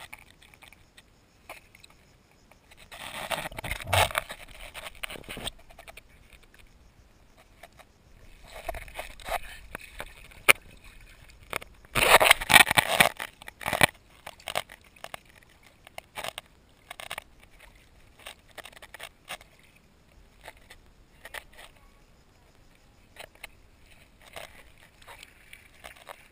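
Action camera scraping and knocking over the sandy bottom in shallow water: three longer bursts of scraping, the loudest about twelve seconds in, with scattered sharp clicks between them.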